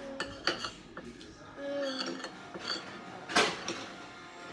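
Tableware clattering during a meal: a few sharp clicks and knocks, the loudest a little past three seconds in, with brief squeaks.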